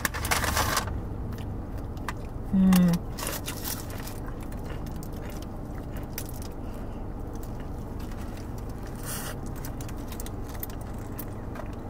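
Burrito being eaten: crinkling foil wrapper, bites and chewing, busiest in the first second and then sparse. A brief hummed 'mm' comes about two and a half seconds in, over a steady low hum.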